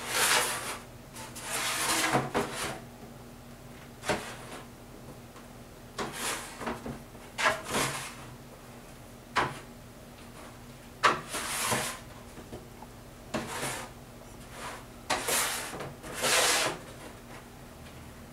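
Painting knife scraping and spreading thick acrylic gesso over a gatorboard panel, in about ten separate strokes, each a second or less.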